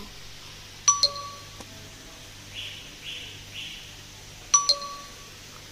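Two electronic chime-like dings about three and a half seconds apart, each a quick double strike that rings on briefly. Between them come three short whirring hisses about half a second apart, over a steady low electrical hum.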